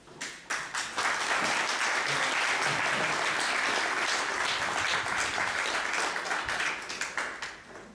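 Audience applauding: a dense patter of many hand claps that builds within the first second, holds steady, then fades out near the end.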